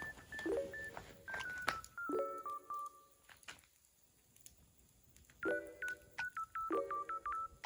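Background music: a light tune of short, clear notes stepping up and down over soft chords, with a pause a few seconds in before the melody picks up again.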